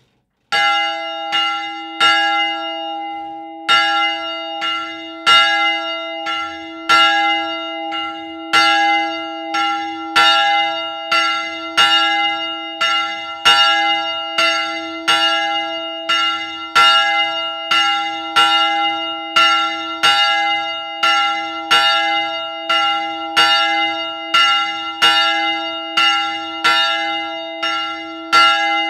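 A single swinging church bell ringing, its clapper striking about every 0.8 seconds over a steady hum that carries on between strikes. It starts suddenly about half a second in; the first few strikes are uneven, then the bell settles into an even beat.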